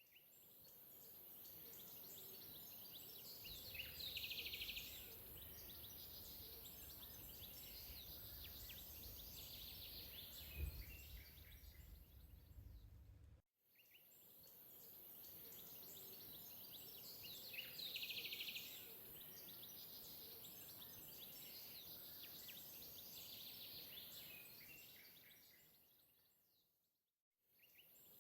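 Faint outdoor ambience with birds chirping over a low rumble and a high hiss. The same stretch plays twice, fading in and out each time like a looped recording.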